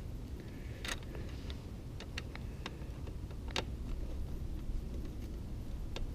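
Scattered light clicks and taps of hand tools and small fasteners being handled while a radiator guard's screws and washers are fitted, about eight at irregular spacing, the sharpest about a second in and again midway. A steady low hum runs underneath.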